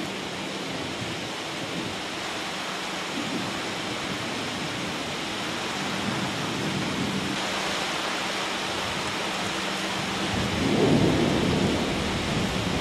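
Heavy rain pouring steadily, with a low rumble of thunder swelling up about ten seconds in.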